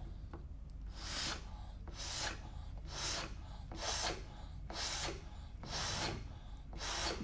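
Mouth-to-mouth rescue breaths blown into a child CPR manikin with its nose pinched: seven breathy puffs of air, about one a second, as the initial ventilations of basic life support are given.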